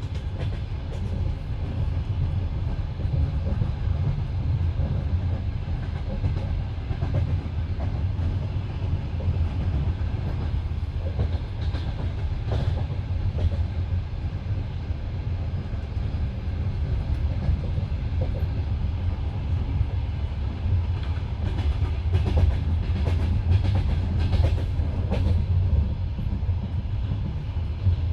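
Passenger train car's wheels running over the track at speed: a steady low rumble with the clickety-clack of the wheels over rail joints and occasional sharper knocks, heard from inside the carriage.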